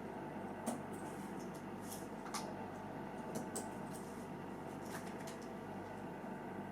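Faint small clicks and scrapes of a watch bracelet and spring bar being worked into the lug of an Omega Speedmaster, a handful of separate ticks over a steady low hum.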